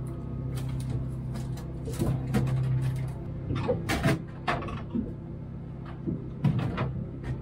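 Drink bottles and cans knocking and clinking as they are loaded into a small pull-out drawer fridge, with a dozen or so scattered knocks. A steady low hum runs under it and stops about three seconds in.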